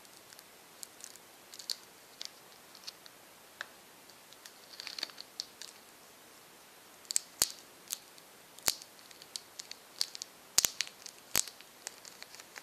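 Cellophane wrapping on a boxed perfume being handled and picked open, crinkling and tearing in small bursts, with several sharp clicks in the second half.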